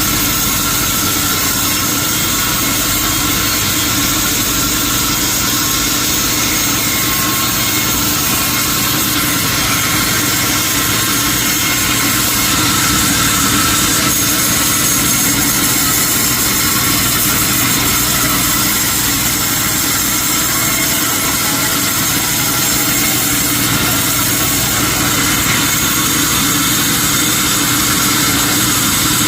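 Sawmill machinery running steadily, a constant mechanical hum with several steady high whining tones and no break or change in level.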